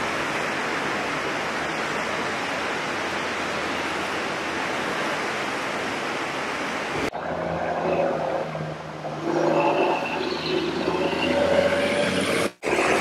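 Steady rushing of a flooded river, with wind noise on the microphone. About seven seconds in the sound cuts abruptly to an uneven motor hum with higher tonal bands over it.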